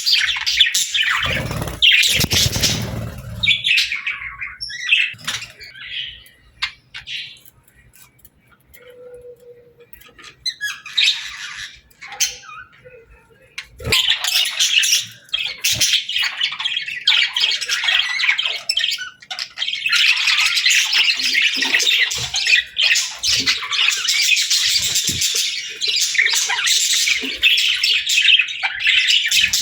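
A flock of budgerigars chattering and chirping in quick, busy squawks. The chatter thins out for several seconds in the middle and grows dense again for the second half. A brief low rumble sounds near the start.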